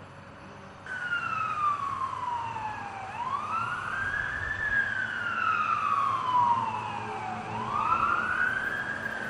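A siren starts about a second in and wails. Its pitch slides slowly down over two to three seconds, then sweeps quickly back up, twice.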